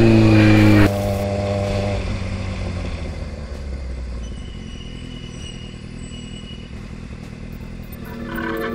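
A motorcycle engine revs up, then cuts off abruptly about a second in. It gives way to a quieter sport motorcycle engine running at low speed, whose note rises a little again near the end.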